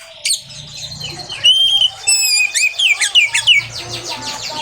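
Oriental magpie-robin (kacer) singing loudly, a varied song of clear whistles. A held whistle comes about a second and a half in, followed by a quick run of sharply sliding notes.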